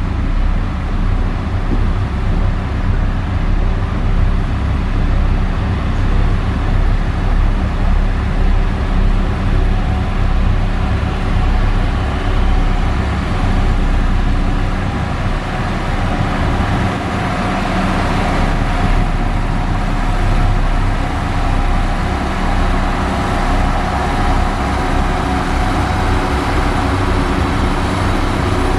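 Diesel engine of heavy construction machinery running steadily under load, with a rapid low pulse, growing noisier for a few seconds about two-thirds of the way through.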